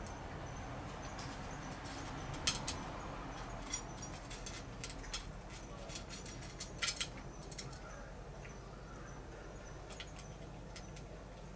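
Cat eating wet food from a small metal bowl: irregular sharp clicks and smacks of chewing and of teeth and tongue against the bowl, busiest in the middle and thinning out toward the end.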